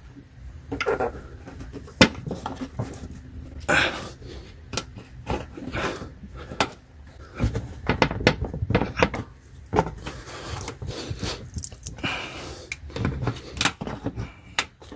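Flathead screwdriver prying plastic push-in fasteners out of a car's plastic splash shield: irregular clicks, taps and scrapes of metal on plastic, with one sharp click about two seconds in.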